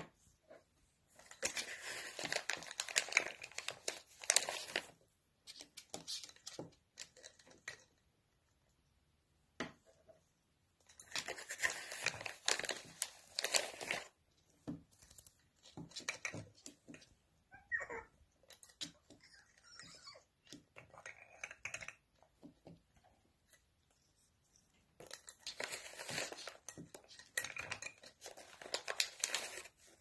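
African grey parrot working a plastic-and-metal toy with its beak: three spells of rapid, scratchy clicking and rattling, with scattered single taps between them.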